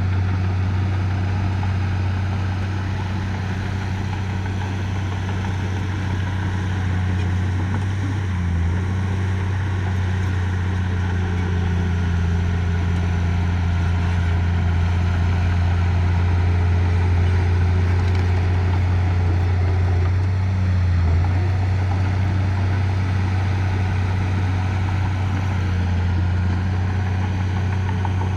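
Heavy construction machine's engine running steadily with a low hum, easing briefly about 8 and 21 seconds in.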